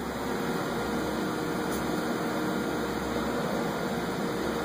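Steady mechanical hum and hiss of background machinery, even in level throughout.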